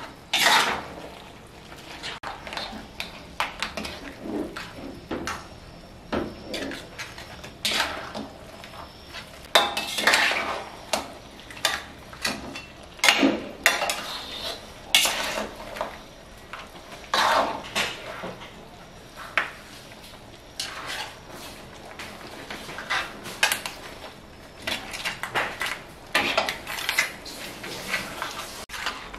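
Wooden-handled metal spatula scraping and clanking against a stainless steel wok as it stir-fries yellow noodles with crab, in irregular strokes about one or two a second.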